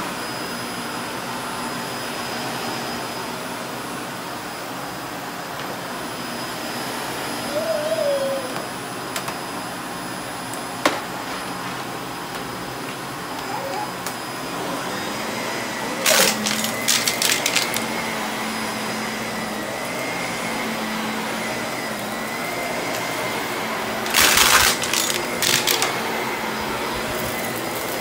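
Vacuum cleaner running steadily, with two bursts of loud rattling, about halfway through and near the end, and a single sharp click between them.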